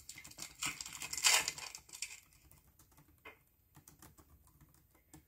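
A foil trading-card pack being torn open and the cards handled: crinkling and tearing over the first two seconds, then a few faint clicks and rustles.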